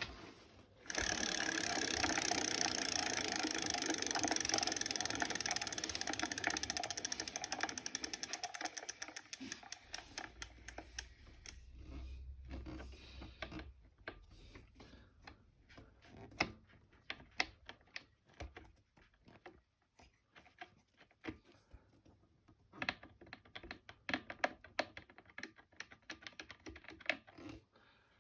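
Engine making a fast mechanical ticking clatter that starts about a second in, slows and thins out after several seconds, and then breaks into scattered clicks, with another cluster of clicks near the end.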